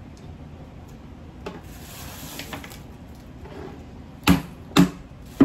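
Three hard knocks about half a second apart near the end, after some faint crackling of shell being handled: a can being banged on a hard-shelled Jonah crab claw to crack it open.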